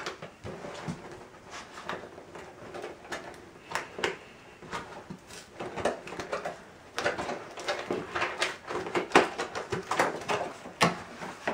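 Cardboard box being opened by hand: fingers scratching and prying at the top flap, with papery scrapes, rustles and small clicks, getting busier and louder in the last few seconds.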